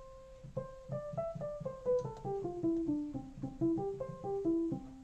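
Behringer Crave single-oscillator analog synthesizer playing a quick run of short notes that climbs and then steps back down, ending on a longer held low note. It is patched with a percussive envelope: instant attack, then a decay to a low sustain, which gives a piano-like struck-string tone.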